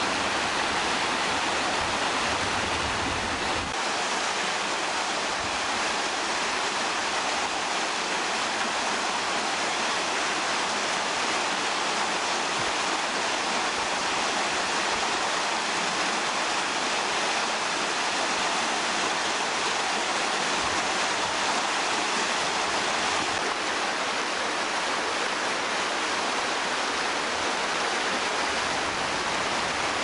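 The Bigăr waterfall's water falling: a steady, even rush that does not change.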